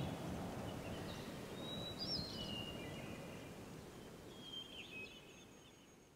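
Quiet outdoor ambience with a few short bird chirps, growing quieter and fading out near the end.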